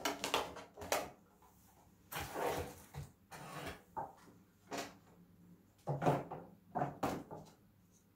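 Plastic packaging being handled and unwrapped: rustling and crinkling in short irregular bursts, with a few light knocks and clicks of a clear plastic container.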